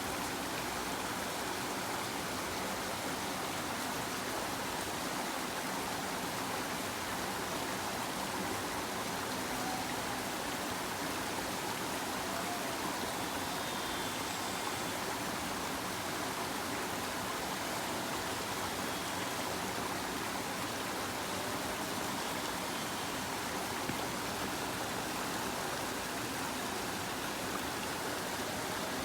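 River water flowing in a steady, even rush, with a few faint short tones about halfway through.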